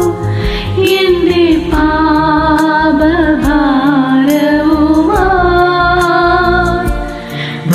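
Woman singing long, slightly wavering held notes over a karaoke backing track with a steady beat.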